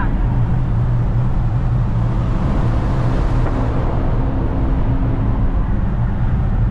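Volkswagen Kombi van driving at highway speed, heard from inside the cab: a steady engine drone over road noise.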